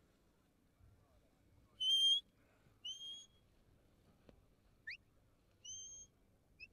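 A shepherd's whistle giving commands to a working sheepdog: five short, clear whistle notes, the first the loudest, some held level and some quick upward flicks.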